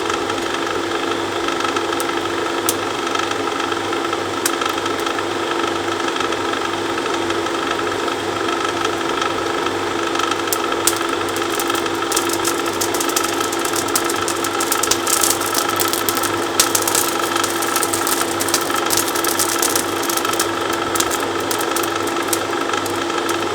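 Blacksmith's forge running while the stock heats: a steady blower hum with one constant tone, with fine crackling clicks through the second half.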